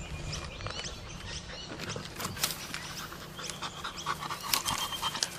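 A dog panting, with scattered light clicks.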